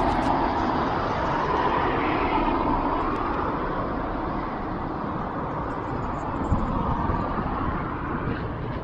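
A car driving along a flooded road, its tyres swishing through standing floodwater. The steady noise slowly fades, and there is a single brief knock about two-thirds of the way through.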